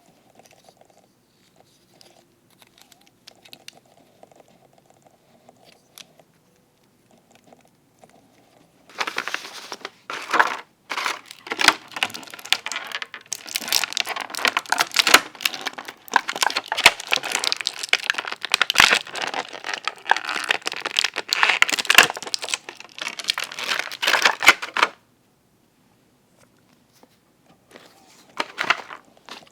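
Plastic packaging being crinkled and torn open by hand. After faint handling sounds, loud, dense crinkling starts about nine seconds in and runs for about fifteen seconds before stopping abruptly, with a brief crinkle again near the end.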